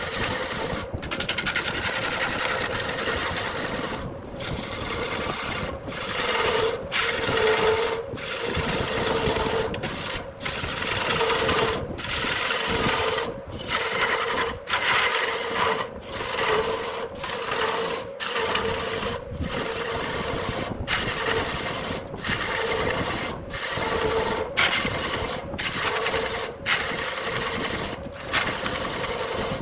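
Wood lathe running with a steady motor hum while a turning tool cuts the spinning burl wood, a rough scraping hiss. The sound drops out for an instant every second or two.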